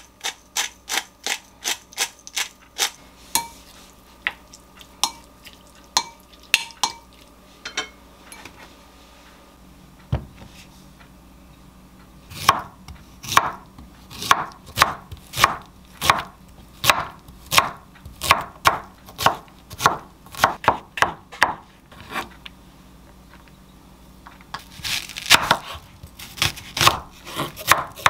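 Chef's knife chopping zucchini and then onion on a wooden cutting board: sharp, regular strokes about two a second, quickening near the end. It opens with a pepper grinder's rapid clicking over a glass bowl.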